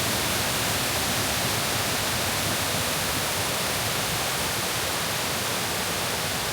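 Steady rush of water from the limestone cascades of Kuang Si Falls: an even hiss at a constant level throughout.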